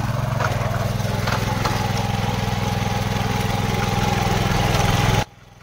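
Small walk-behind power tiller's engine running steadily just after being started. It cuts off suddenly about five seconds in.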